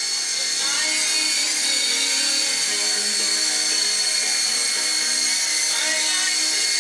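SYMA S032 toy RC helicopter's small electric motors and rotors whirring with a steady high whine, spinning up over about the first second and a half. Music plays faintly underneath.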